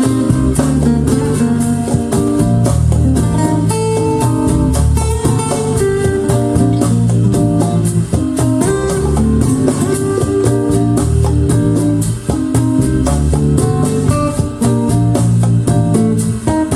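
Music played through KEF Q11 loudspeakers driven by a Pioneer SA-708 amplifier: a jazz-fusion piece with plucked guitar, a busy bass line and quick percussion.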